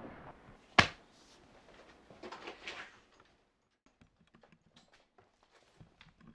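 A single sharp bang about a second in, followed by a short rustle, then soft, scattered footsteps.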